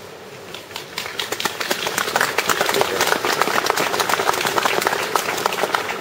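Audience applauding: a dense run of hand claps that starts about a second in, swells and holds.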